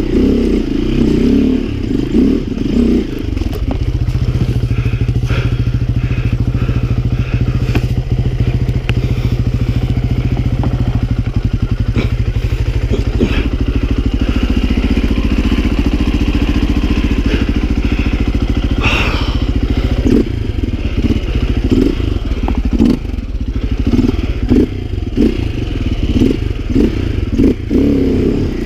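Dirt bike engine running at low revs while the bike picks its way over rocks and through water. It chugs at a steady note through most of the middle. Near the start and through the last third it revs up and down unevenly, with repeated clattering knocks.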